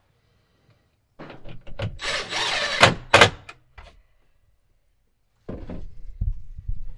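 Cordless drill driving a screw into a timber bed frame for about two seconds, ending in a couple of sharp clicks. This is followed near the end by low knocks and the handling of tools on wood.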